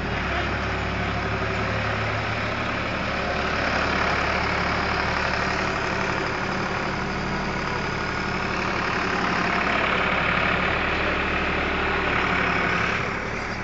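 Ford 4610 tractor's three-cylinder diesel engine running as the tractor is driven and slid around on snow, its revs swelling and easing a little a couple of times.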